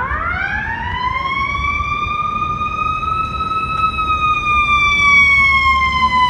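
Fire truck siren wailing: the pitch sweeps up quickly at the start, holds, then slowly falls, growing louder toward the end as the truck passes close. A steady low rumble of the truck and road traffic lies underneath.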